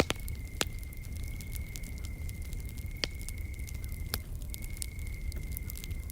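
Wood campfire crackling, with several sharp pops over a low steady rumble, and an insect trilling on one high steady note that breaks off briefly a few times.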